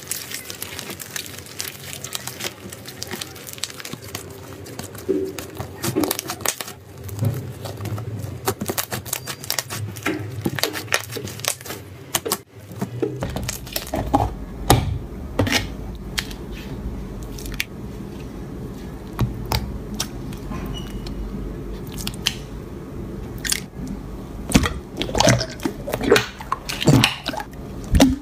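Slime being squished, stretched and pressed by hand: a dense stream of small sticky crackles, pops and clicks. About halfway through the sound shifts as a different slime in a plastic tub is worked, with a low hum underneath.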